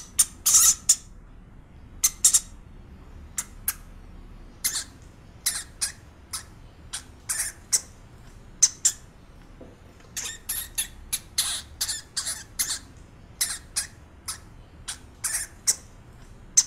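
Hamster squeaking: many short, high-pitched squeaks come in irregular clusters, some in quick pairs.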